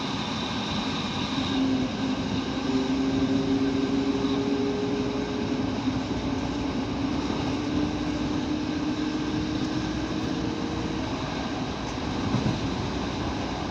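Fiat ALn 668 diesel railcar running at speed, heard from on board: steady wheel and rail rumble with a droning tone that comes in about two seconds in and slowly rises in pitch before fading near the end.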